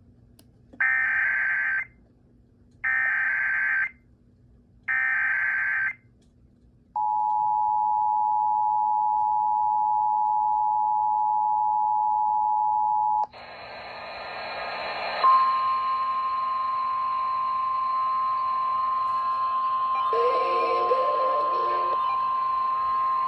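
Emergency Alert System tones: three short, harsh warbling bursts of SAME header data about a second apart. Then comes the two-tone EAS attention signal, a steady dual tone, for about six seconds. It is followed by radio hiss with a single steady alert tone, the NOAA Weather Radio 1050 Hz warning tone, that starts about two seconds after the hiss.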